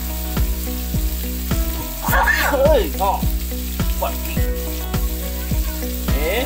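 Chilli sambal frying and sizzling in a pan as sweet soy sauce is stirred in, with a regular low thump about twice a second beneath it.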